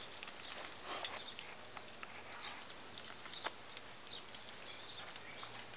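Faint scattered clicks and rustles of a lead rope and its metal snaps being handled as the rope is knotted onto a foal's halter.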